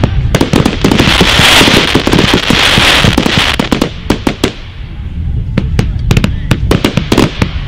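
Fireworks cake firing a rapid run of sharp bangs, with a dense, hissing stretch about one to three and a half seconds in, then thinner, separate reports.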